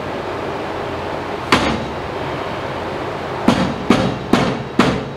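Rubber mallet striking a steel CPP center crossmember to drive it up into the truck frame. One sharp blow about a second and a half in, then four more blows about half a second apart near the end.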